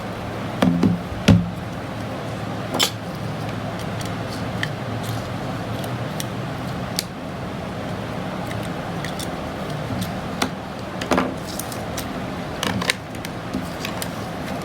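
Scattered sharp clicks and small taps of electrical switch parts being handled and fitted, over a steady low hum.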